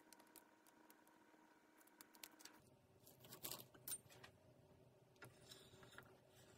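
Near silence with a few faint clicks and a soft scrape about three and a half seconds in, from a metal offset spatula spreading jam over the base of a baked tart shell.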